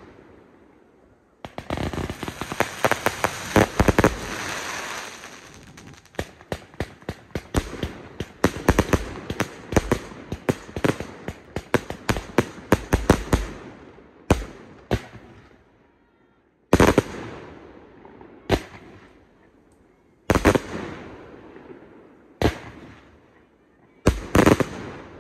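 Aerial fireworks bursting close overhead. For the first half come rapid strings of bangs and crackling. Then single loud shell bursts follow a second or two apart, each trailing off in an echo.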